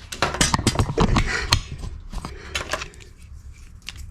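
Quick clicks and knocks of small parts being handled and pushed together by hand, dense for about the first two seconds, then a few scattered ticks.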